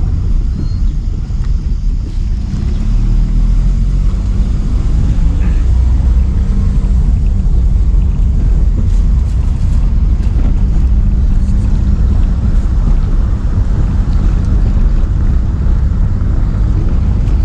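Steady low rumble of a vehicle on the move, engine and road noise heard from inside.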